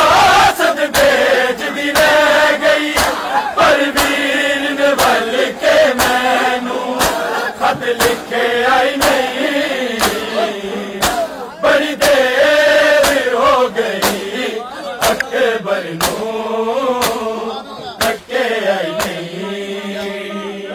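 A group of men chanting a nauha, a Shia mourning lament, in unison. Sharp slaps of chest-beating (matam) keep a steady beat under the chant.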